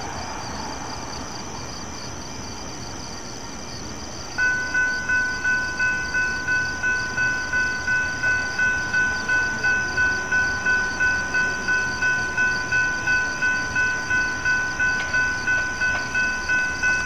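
Railroad grade-crossing warning bell starting about four seconds in and ringing steadily, about two strikes a second, as the crossing activates for an approaching Metra train.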